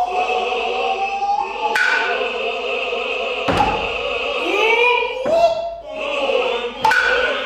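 Noh chanting (utai), voices in slow wavering unison, punctuated by four sharp strokes of the tsuzumi hand drums, one every second and a half or so.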